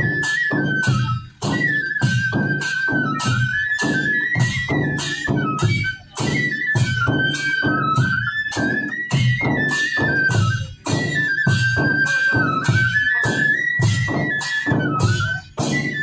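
Bhaderwahi folk music: two double-headed dhol drums beaten with sticks in a steady rhythm of about three strokes a second, under a flute playing a repeating melody that steps up and down. The music breaks off briefly about every five seconds, four times.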